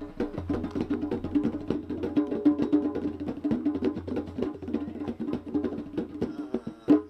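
Music with rapid percussion: quick wood-block-like clicks over steady sustained notes, stopping abruptly at the end.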